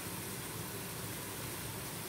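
Steady rushing of river water mixed with falling rain, an even hiss with no breaks.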